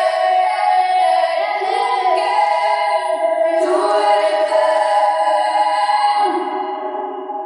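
Isolated female pop lead vocal with no instruments, singing long held notes and fading out near the end.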